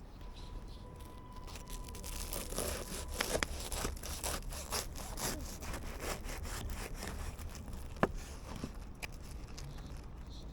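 A run of quick rasping strokes, about two to three a second, over several seconds, like something being rubbed or sawn. A single sharp click comes about eight seconds in.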